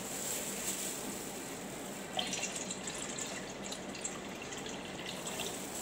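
Water pouring from a large 5-litre plastic bottle into a stainless steel pot, the splashing growing brighter from about two seconds in.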